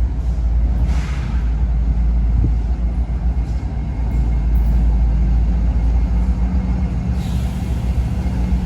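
Diesel freight locomotive running with a steady deep rumble, with a short hiss about a second in and another hiss starting near the end.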